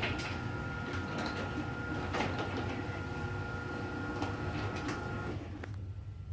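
Chamberlain garage door opener running as it raises the door: a steady motor whine with clattering and clicks from the door rolling in its tracks, cutting off about five seconds in when the door reaches the top.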